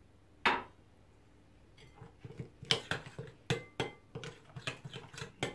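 One sharp knock about half a second in, then a metal spoon stirring a yogurt, spice and oil marinade in a glass bowl. It clinks and scrapes against the glass about two to three times a second from about two seconds in.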